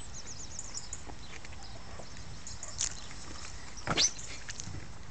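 Open-air background hiss with a few faint high chirps in the first second, then a short sharp sound about four seconds in as a child drops from steel playground slide rails onto grass.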